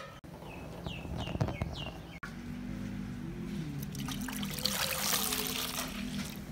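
Milk poured in a thin stream into a metal cooking pot, trickling and splashing as the pot fills, strongest in the second half. A few short falling bird chirps come in the first two seconds.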